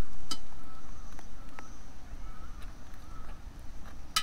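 Outdoor ambience: a low wind rumble on the microphone that fades over the first second or so, with a few faint short bird calls and soft clicks.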